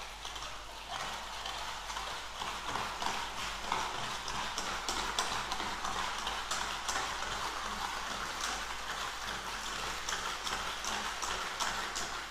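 Wire whisk beating a batter of curd, oil and sugar in a stainless-steel bowl: the wires click and scrape against the metal in a quick, steady rhythm as the mixture is blended smooth.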